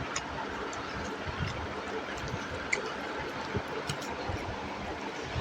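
Wet chewing and mouth clicks of someone eating chicken curry and rice, as scattered small smacks and ticks over a steady background hiss.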